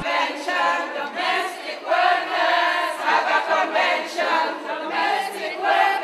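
A group of voices singing together without instruments, in short phrases with held notes.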